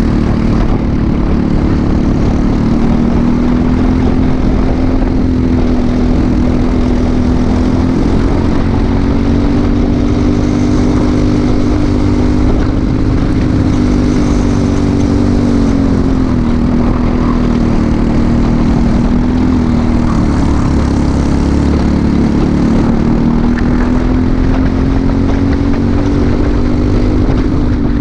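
Briggs & Stratton LO206 single-cylinder four-stroke kart engine running hard, heard on board at racing speed. Its note falls three times as the kart slows for corners and climbs again as it accelerates out.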